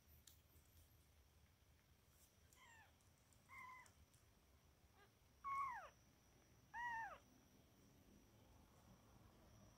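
Month-old kitten mewing: four short, high-pitched meows, each falling in pitch, the last two louder than the first two.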